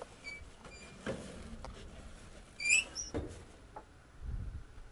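Quiet background with short high-pitched squeaks: two brief ones within the first second and a louder, wavering one a little before halfway.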